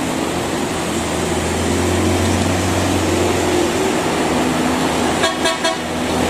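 A coach bus's engine running with a steady low drone over tyre hiss on a wet road, then a quick series of horn toots about five seconds in.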